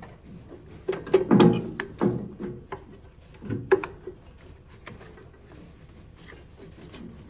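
Irregular clunks, taps and rubbing as a heavy battery cable is fed around and under the tractor's parts. The knocks are busiest in the first few seconds, then quieter handling noise follows.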